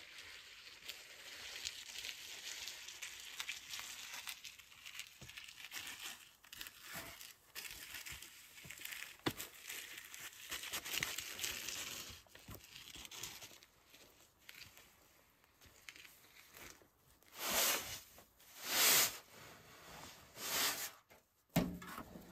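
Sand being worked by hand: a gritty, rustling scrape of sand sliding and being spread. Near the end come three louder scrapes about a second and a half apart, like a shovel digging into a sand pile.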